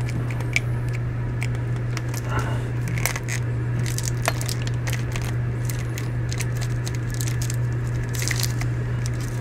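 Fingers picking at a plastic wrapper on a plastic action figure: scattered small clicks and crinkles. A steady low hum runs underneath.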